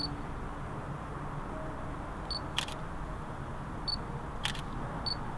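Panasonic Lumix G70 mirrorless camera focusing and taking pictures: short high beeps as the autofocus locks, and twice a quick double click of the shutter firing shortly after a beep.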